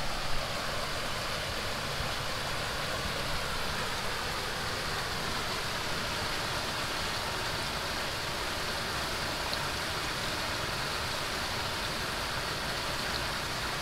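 Steady rushing wind noise outdoors.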